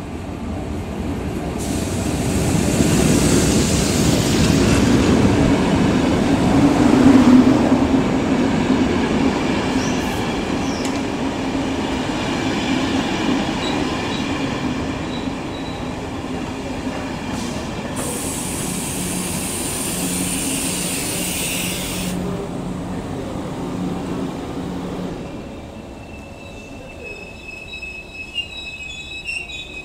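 Electric-locomotive-hauled passenger train arriving along the platform and braking to a stop. The locomotive passes loudest several seconds in, then the coaches roll by steadily, with a hiss about two-thirds of the way through. Thin high brake squeals come as the train slows to a halt near the end.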